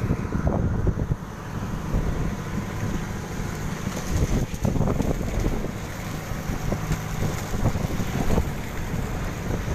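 Strong wind buffeting the microphone: a loud low rumble that swells and drops in gusts.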